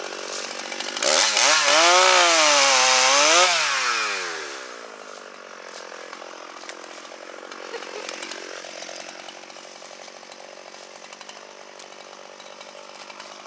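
Two-stroke chainsaw idling, then revved hard for about three seconds, its pitch climbing, dipping and climbing again as it cuts, before it drops back to a steady idle.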